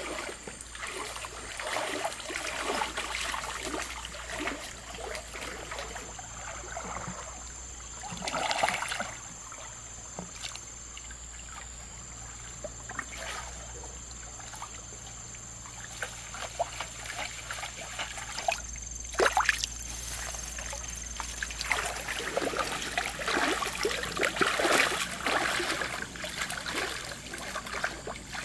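Water trickling and splashing in irregular bursts, busier in the second half, with one sharper splash a little past halfway. A thin, steady high whine sits above it.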